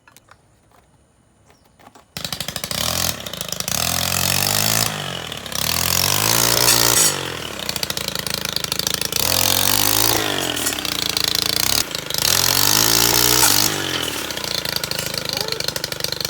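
Motor-driven sharpener grinding a clearing-saw blade. It starts abruptly about two seconds in, its pitch repeatedly falling and rising, with a harsh grinding hiss that comes and goes.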